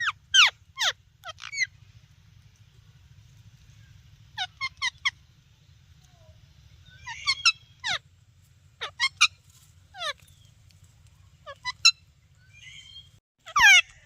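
Parrot chirping: short, sharp calls that drop quickly in pitch, coming in clusters of two to four with short pauses between. The calls are loud against a faint, steady low hum.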